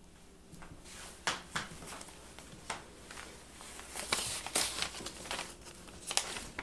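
Footsteps and camera-handling rustle: scattered soft knocks and rustles at an uneven pace over quiet room tone, busiest about four seconds in.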